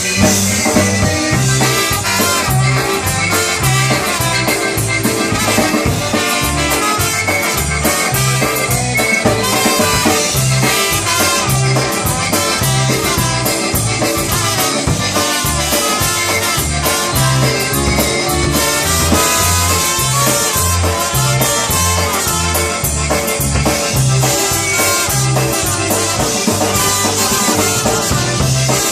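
Live polka band playing, with a steady drum beat and a bass line bouncing between low notes on the beat.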